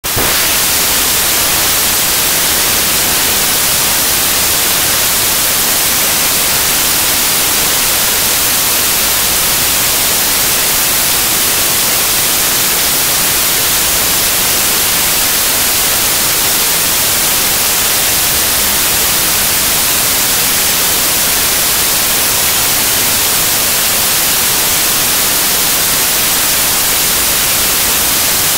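Loud, steady static-like hiss that stays the same throughout, with nothing else heard over it.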